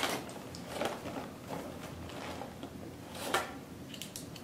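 Faint rustling and light handling noises of a small white cardboard accessory box being opened after its tape seal is broken, with a brief sharper rustle about three seconds in.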